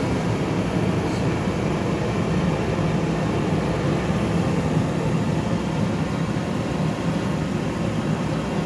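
Gas forge burner running steadily at 30 psi, its choke open so that extra air gives a hard, torch-like flame. The steady rush of gas and flame holds at an even level.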